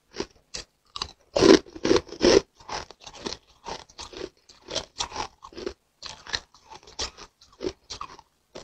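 Pink-coloured ice being bitten and chewed: a run of sharp crunches, the three loudest between about a second and a half and two and a half seconds in, then smaller chewing crunches two to three a second.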